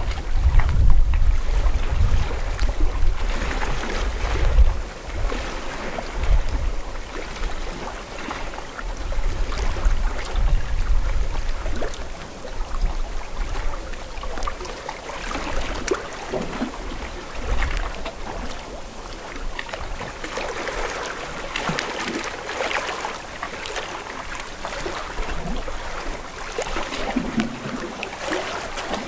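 Lake water lapping and splashing in small irregular waves, with wind buffeting the microphone, heaviest in the first few seconds.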